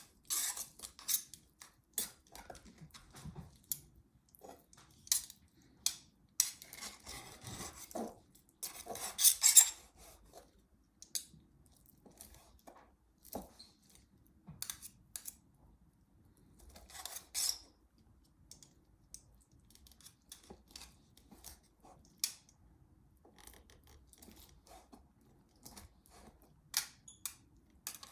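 Knife slicing food on a cutting board: irregular taps of the blade against the board, with longer scraping stretches about a third of the way in and again a little past halfway.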